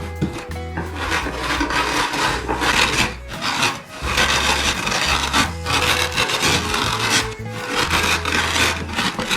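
A heavy rolling pin crushing cooled toasted rice grains into coarse rice flour, in repeated rolling strokes with short pauses between them.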